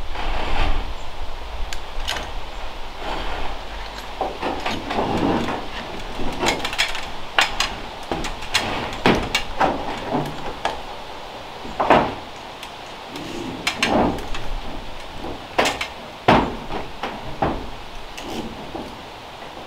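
Irregular knocks and clunks of a person climbing a ladder and stepping onto a metal roof, with a few sharper bangs in the second half.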